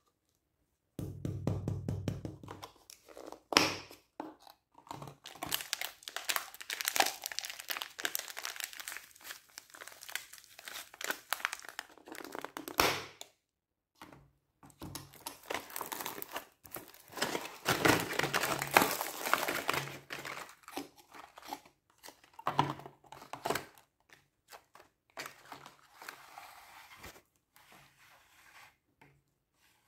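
Thin clear plastic cups and their dome lids being handled and pressed on: uneven crinkling and crackling of the plastic, with light knocks as the cups are set into a plastic tray.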